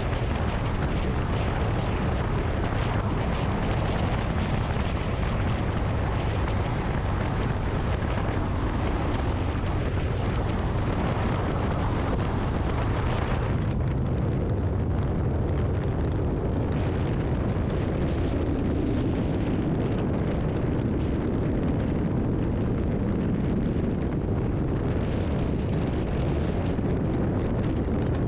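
Heavy wind rumble buffeting the camera microphone while riding a Honda X-ADV 750 motorcycle at highway speed. About halfway through, the high hiss drops away suddenly and the rumble turns duller.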